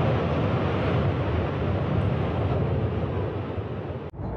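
Steady rushing, wind-like noise with a low rumble on outdoor footage. It breaks off abruptly at an edit cut about four seconds in.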